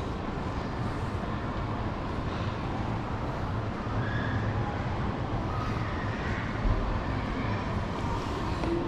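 Toyota RAV4 with its 2.0-litre inline-four petrol engine on the move: a steady mix of engine and road noise with a low rumble, and one brief thump about two-thirds of the way in.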